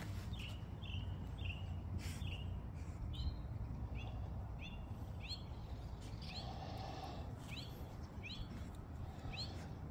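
A bird calling over and over in short chirps, about two a second, that turn into quick rising sweeps after a few seconds. A steady low rumble of background noise runs underneath.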